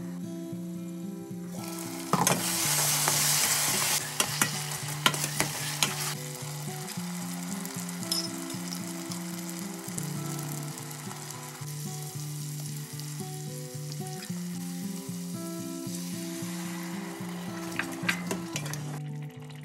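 Curry gravy sizzling and bubbling in a stainless steel pot, with a louder burst of sizzling about two seconds in. There are clinks of a metal ladle against the pot, and stirring near the end. Soft background music plays throughout.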